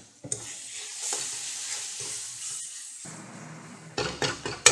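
Onion and tomato masala sizzling in hot oil in a pan as it is stirred, with a spatula scraping the pan several times near the end.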